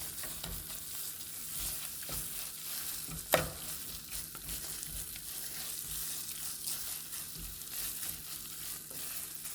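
Spinach for efo riro sizzling in a pot of hot oil while being stirred, cooking down from watery to a drier stew: a steady sizzle with light scrapes and one sharp knock about three and a half seconds in.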